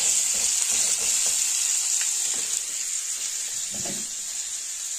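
Blue crab claws and bodies frying in hot oil with garlic in a pan: a steady sizzle.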